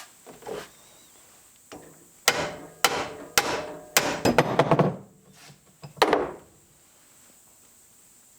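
Hammer striking a steel drift wedge in the drill press quill, about eight sharp ringing metal strikes with a quick run of blows in the middle, knocking the chuck's Morse taper loose.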